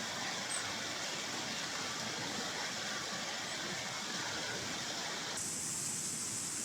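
Steady rushing hiss of a rain-swollen stream flowing past.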